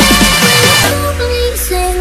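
Jungle Dutch electronic dance music: a quickening roll of heavy drum hits, each falling in pitch. It breaks off about a second in into a thinner passage with a gliding synth melody.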